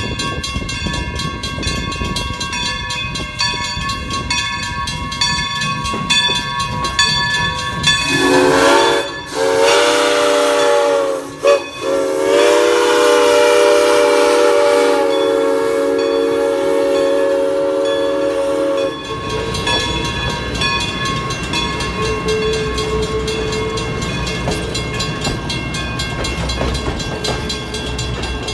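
Steam locomotive No. 40 of the New Hope & Ivyland, a Baldwin 2-6-2, passing close by. A steady ringing gives way, about eight seconds in, to its steam whistle blowing loudly: two short blasts, then one long blast of about seven seconds. After that the coaches roll past with a steady low rumble of wheels on rail.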